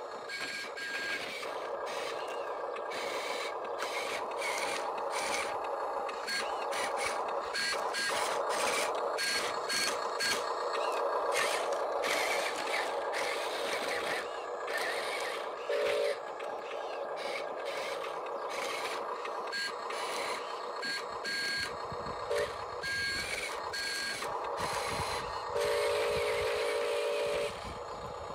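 Radio-controlled construction machines working in gravel: a steady electric motor-and-gear whine, with many small clicks and scrapes of stones. Short electronic beeps come several times, one held for about two seconds near the end.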